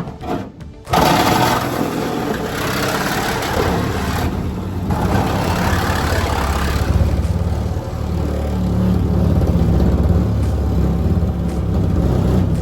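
An engine starts abruptly about a second in and keeps running with a steady low drone. A harsh, noisy layer sits over it for the next several seconds before it settles.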